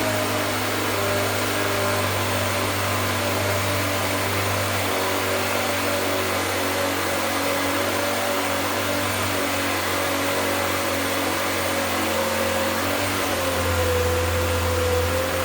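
A small electric motor running steadily, a whine over a low hum, its pitch drifting slightly down and up.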